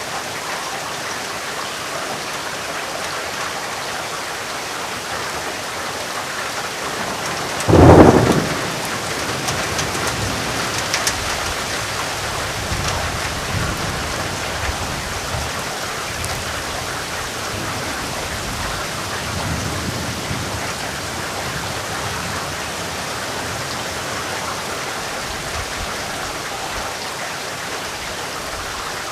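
Steady rain with a sudden thunderclap about eight seconds in, the loudest sound, followed by rolling thunder rumbles that die away over the next twelve seconds or so.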